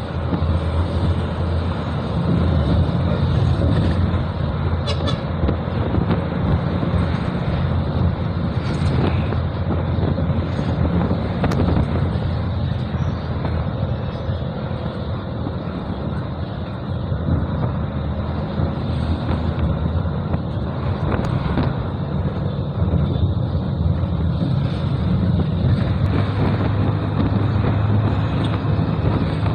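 Steady engine drone and road noise of a moving vehicle, heard from on board.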